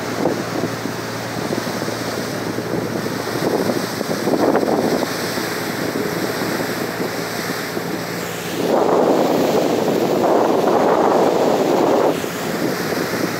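Wind buffeting the microphone on the deck of a moving river ferry, over the rush of water along the hull and a low, steady engine drone. The wind swells briefly about four seconds in, then gusts loudest for about three seconds near the end.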